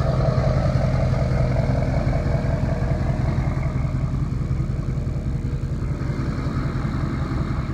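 A motor vehicle engine idling steadily with a low, even hum.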